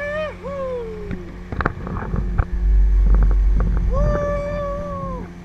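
Small motorboat's engine droning under two long, high whoops of excitement, one at the start and one near the end. In between come a few sharp knocks and a heavy low wind rumble on the microphone.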